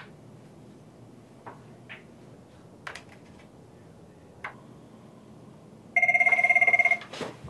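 Desk telephone ringing once, for about a second near the end: a loud, fast-warbling electronic ring, followed by a short clatter. Before it come a few faint light ticks.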